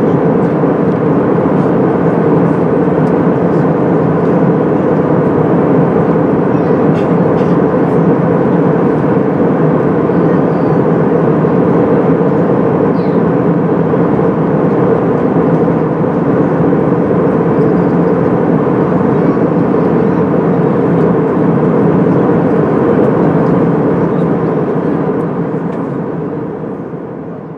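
Steady cabin noise of an Airbus A320-232 in flight, heard inside the cabin by the wing: the hum of its IAE V2500 turbofan engines mixed with the rush of air past the fuselage. It fades down near the end.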